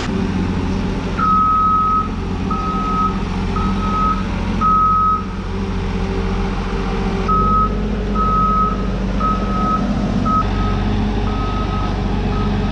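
Boatyard travel lift's engine running steadily while its warning beeper sounds a high beep over and over, roughly once a second, with a pause of about two seconds midway; the beeper signals that the lift is on the move.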